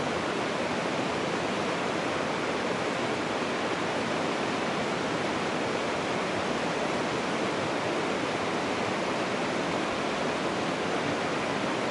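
Steady rushing of moving water, like a mountain stream running nearby, an even noise that does not change.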